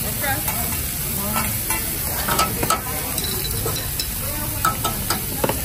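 Steaks, chicken and shrimp sizzling steadily on a hot teppanyaki steel griddle, with a few sharp clinks and scrapes of a metal spatula against the plate.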